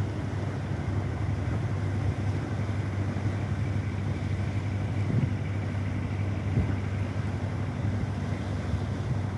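Boat engine running steadily: an even low drone with a broad hiss over it.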